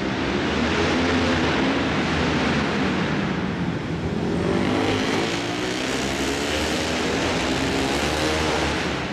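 A pack of flat track racing motorcycles running together on a dirt track, several engines overlapping, rising and falling in pitch as the riders throttle on and off through the corners.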